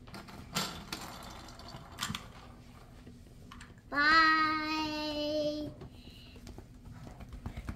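A child's voice calls out one long held note, starting about four seconds in and lasting nearly two seconds. Before it come a couple of faint knocks from a plastic toy being handled.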